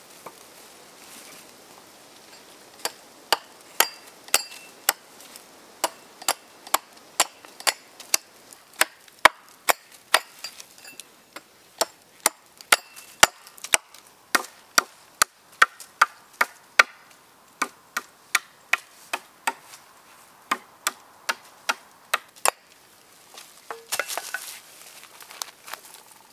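A blade chopping into wood: a steady run of sharp chopping strikes, about two a second, stopping about four seconds before the end and followed by softer handling sounds.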